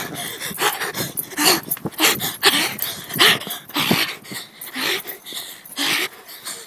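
Loud, heavy panting breaths, about two a second, some with short voiced gasps.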